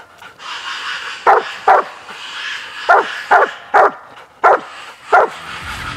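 Coonhound barking treed, reared up against the trunk: seven short barks, some in quick pairs, the call that a raccoon is up the tree. Background music comes in near the end.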